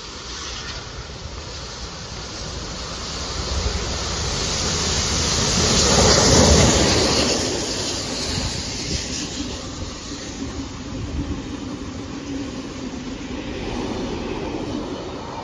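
Heritage steam train 3801 passing through the station, with its wooden-bodied passenger carriages rolling along the rails. The sound builds to its loudest about six seconds in, then eases to a steady rumble as the rest of the carriages go by.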